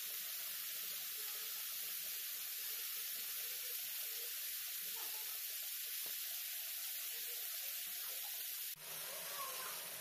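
Marinated chicken tikka skewers sizzling steadily on a hot ridged grill pan over medium-high heat, with a short break near the end.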